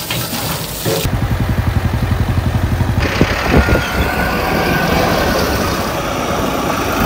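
Tractor diesel engines running in quick cuts between a Mahindra Arjun Novo 605 DI and a New Holland 3630 TX, with a regular engine beat for a couple of seconds after the first cut.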